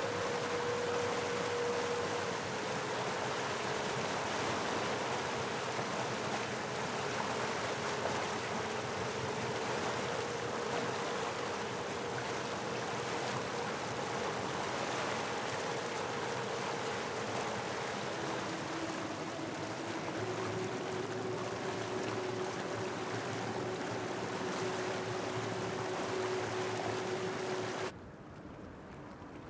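Outboard engine of a rigid inflatable boat under way, a steady whine over a loud rush of wind and water. The pitch steps down slightly a couple of times. Near the end the sound cuts abruptly to a much quieter background.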